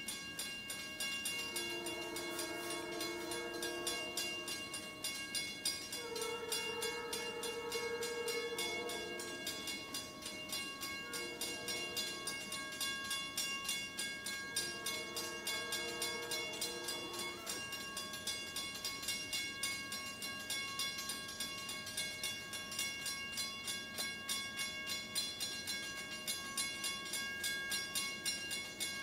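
An approaching diesel freight locomotive's multi-chime air horn sounds the grade-crossing signal: two long blasts, a short one, then a long one. Under it, a crossing bell dings rapidly and steadily throughout.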